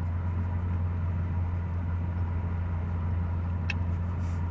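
Steady low hum of an idling car engine, with a single faint tick near the end.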